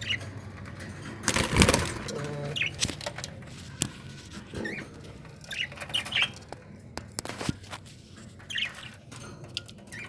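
Budgerigars chirping briefly now and then, with a burst of wing flapping about a second and a half in.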